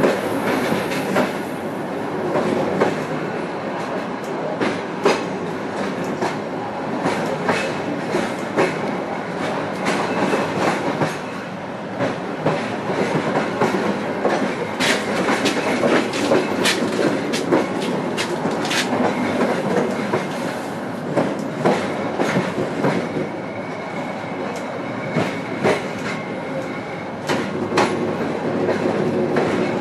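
Passenger train running at low speed, its carriage wheels clattering irregularly over rail joints and points over a steady rumble, heard from inside the last coach.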